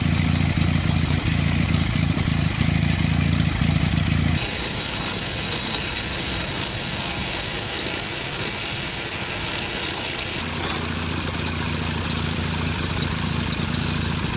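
Norman T300 flat-twin petrol marine engine running steadily. Its low, even running note drops away about four seconds in, leaving a rougher, thinner sound, and comes back about ten seconds in.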